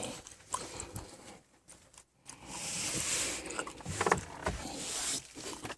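Rustling and light knocks of things being handled and moved about, with two stretches of hiss lasting about a second each.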